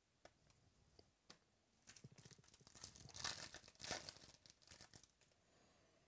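A foil-lined trading-card pack being torn open by hand, the wrapper crackling and crinkling. The tearing starts about two seconds in, is loudest near the middle and dies away about a second before the end.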